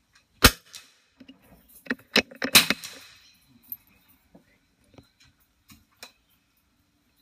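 A single .22LR rimfire benchrest rifle shot about half a second in. A quick run of sharp metallic clicks and clacks from the rifle's bolt action follows, with a few faint clicks near the end.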